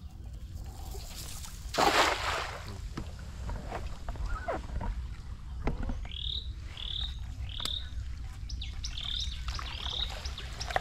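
A cast net hits the water with a splash about two seconds in. From about six seconds on, a series of short high chirps repeats roughly once a second, over a low steady rumble.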